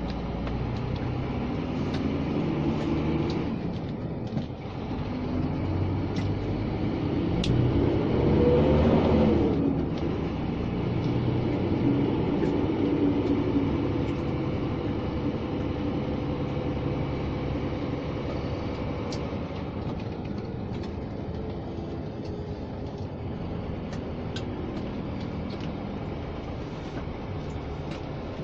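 Scania G460 truck's diesel engine heard from inside the cab, running at low speed. The engine note climbs and then falls back about eight to nine seconds in, the loudest moment.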